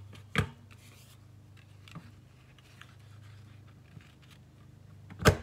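A plastic triple corner-rounder punch being handled with a small piece of cardstock on a craft mat: a sharp knock about half a second in, a faint tap around two seconds, and a loud sharp clack near the end, over a faint low hum.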